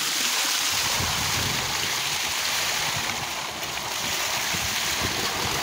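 Steady rush of water pouring from a pipe outlet into a tank, splashing over a person standing under the stream and into the water below.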